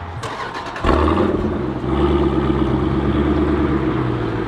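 Jeep Grand Cherokee SRT's 6.4-litre HEMI V8, fitted with a Corsa cat-back exhaust, starting from cold: it fires about a second in and settles into a steady idle.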